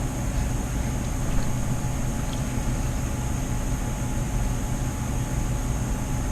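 A steady low hum with an even hiss over it, constant throughout: background machine noise.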